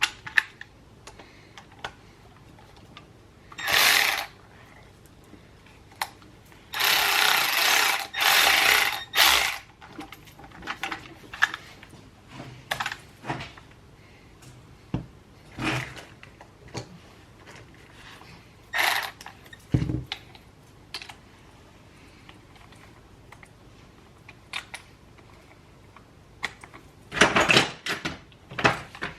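Hand work on a Honda CR125 two-stroke engine: scattered clicks and knocks of tools and parts being handled, with several louder rasping bursts of noise about a second long, near 4 s, between about 7 and 9.5 s, and near the end.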